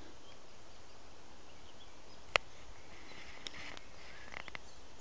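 Quiet woodland ambience, a steady faint hiss with a few faint high ticks, broken by one sharp click a little before halfway.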